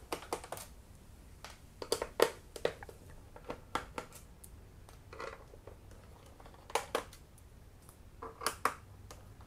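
Irregular light clicks and taps of a screwdriver taking the screws out of a laptop's plastic bottom case, and of the small loose screws being set down on a tabletop.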